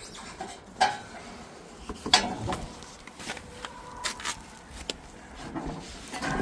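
Spare tire on its metal bracket being pulled out from under the vehicle: a handful of separate metallic knocks and clinks, the loudest about two seconds in.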